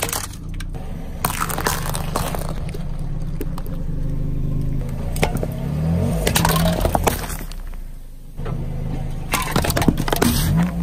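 A car tyre rolling over and crushing a plastic toy and then aluminium drink cans: sharp cracks and crunches in several clusters over the steady low running of the car's engine.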